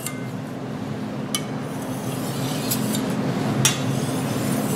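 Thin Chinese vegetable cleaver (cai dao) stroked lightly back and forth across an ultra-fine ceramic sharpening stone: a soft, steady scraping of steel on stone, with a few sharp light clicks spaced about a second apart.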